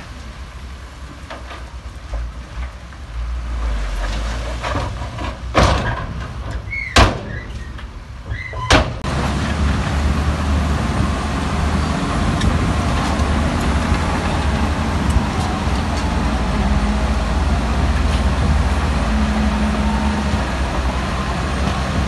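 Heavy diesel earthmoving machinery running with a low rumble. Three loud, sharp clanks come about 5.5, 7 and 8.5 seconds in. After that the machine grows louder and runs with a dense, rough noise.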